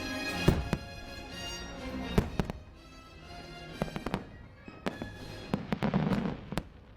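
Fireworks bursting in sharp bangs and crackles over the show's music, with a rapid cluster of bangs about six seconds in.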